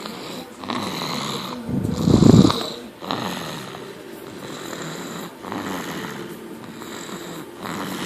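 A seven-month-old snoring in sleep: a run of slow, rasping breaths, with one louder, rougher snore about two seconds in.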